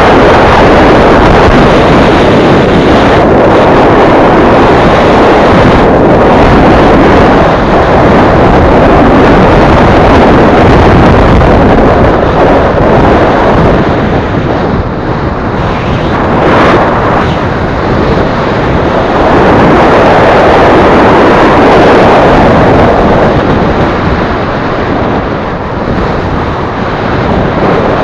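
Loud wind buffeting on an action camera's microphone in a moving vehicle, mixed with road and engine noise. It eases off briefly twice, about halfway through and again near the end.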